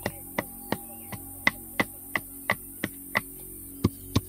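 Steady chopping into bamboo, sharp knocks at about three strikes a second with a short pause about three and a half seconds in.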